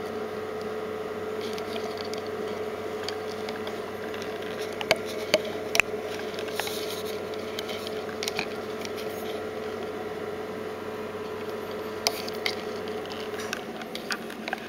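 Steady machine hum with a held mid-pitched tone, which cuts out about a second before the end, with a few sharp clicks and taps about five seconds in and again near the end.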